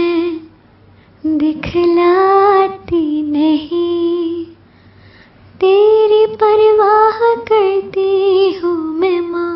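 A female voice singing a slow, unaccompanied song in long phrases with held, gently wavering notes, with short pauses between phrases.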